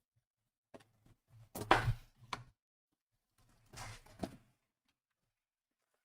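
Handling noise on a tabletop: three short bursts of rustling and knocking, as a box and its packs are moved around.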